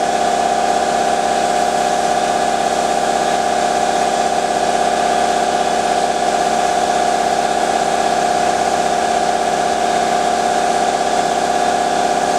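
A motor running steadily with a constant whine, unchanging in pitch and level throughout.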